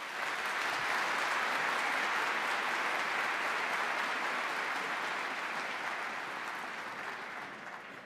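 Audience applauding at the close of a speech. The clapping swells within about a second, then slowly dies away toward the end.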